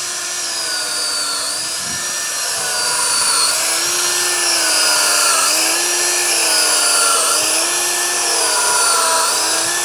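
Power drill running at high speed, boring spawn holes into an oak log to inoculate it with shiitake. The whine sags in pitch and recovers several times as the bit bites into the wood, then stops at the very end.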